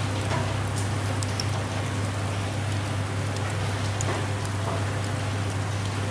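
Open charcoal fire crackling and hissing under a kebab grill, many small pops over a steady hiss, with a steady low hum underneath.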